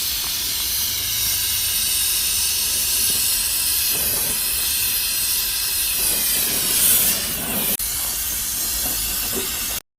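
A steady, loud hiss of a jet, swelling briefly about seven seconds in and cutting off abruptly near the end.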